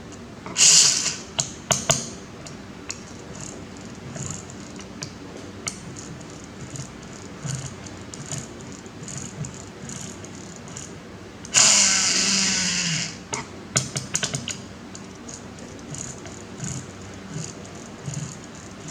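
Small hard parts clicking and tapping as a toy car is worked on by hand. There are two loud hissing bursts: a short one about half a second in and a longer, fading one near the middle.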